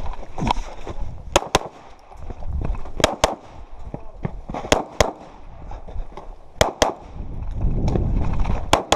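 Pistol shots fired in quick pairs: four double taps about a second and a half apart, then a single shot near the end.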